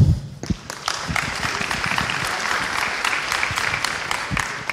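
Audience applauding in a lecture hall: dense clapping that builds up within the first second and thins out near the end.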